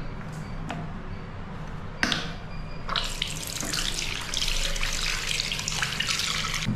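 A few clicks and a knock, then a washbasin tap is opened about three seconds in and water runs steadily from it into a ceramic sink, splashing over a hand held under the stream.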